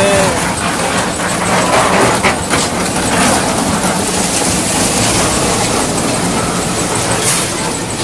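Concrete-pouring machinery running steadily and loudly: the mixer and the lift's hoist, a continuous mechanical rumble and clatter.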